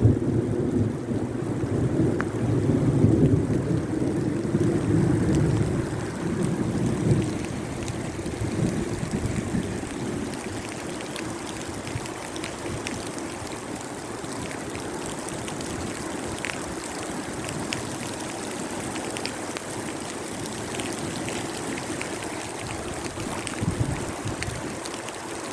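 Thunder rumbling low for the first several seconds and fading out, then steady rain with scattered drops ticking.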